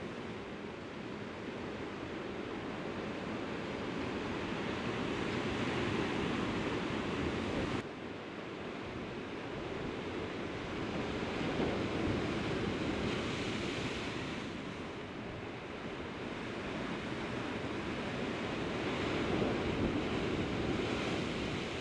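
Sea surf washing against a rocky shore, swelling and ebbing slowly every several seconds, with a sudden drop in level about eight seconds in.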